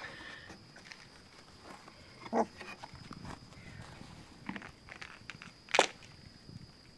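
Four-week-old puppies scuffling in wood shavings, with a few brief, sharp yips; the loudest comes about six seconds in.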